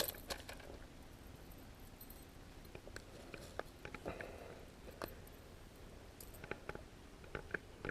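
Faint, scattered clicks and light rustling of handling noise, a few clustered near the start and more near the end.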